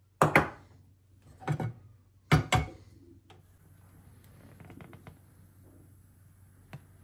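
Three sharp metal clanks, about a second apart in the first three seconds, as a steel pot is handled on a gas stove, then a faint trickle of cooking oil being poured into the pot.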